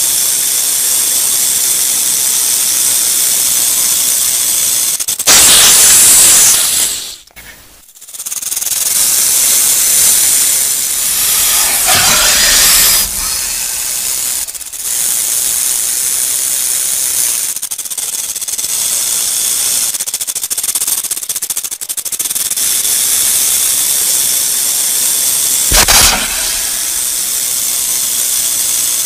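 Rattlesnake shaking its tail rattle: a continuous dry, hissing buzz, with louder surges about five seconds in, around twelve seconds and near the end, and a brief drop just after the first surge.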